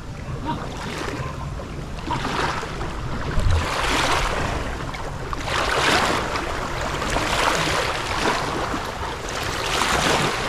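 River waves washing in swells roughly every two seconds, with wind buffeting the microphone in a steady low rumble.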